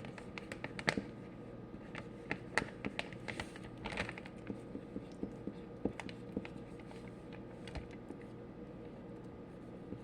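Scattered light clicks and taps from slime and its containers being handled, irregular and busiest in the first half, over a faint steady hum.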